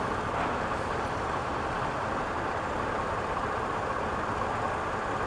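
Steady traffic noise with vehicle engines idling at a stop.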